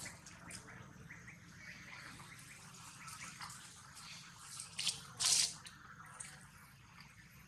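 Baby long-tailed macaque chewing and mouthing grass blades, making a run of small clicks and smacks. A louder short rustle comes a little over five seconds in.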